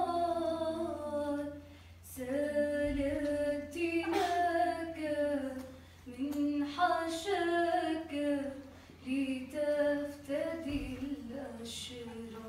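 A woman's solo voice singing a slow Arabic Christian Passion hymn in long held notes, with short breaks between phrases. It grows quieter near the end.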